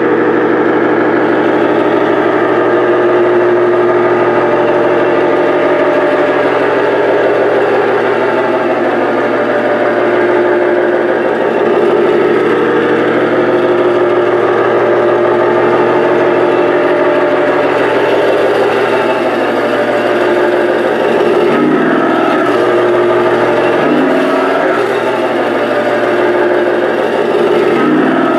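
Motorised toy pickup truck running, with a steady engine-like rumble that wavers slightly in pitch and changes a few times near the end.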